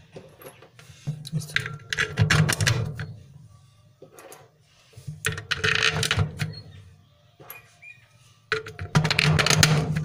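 Steel nuts and bolts clinking and rattling against a washing machine's aluminium plate as they are handled and set into its bolt holes, in three bursts of clicks.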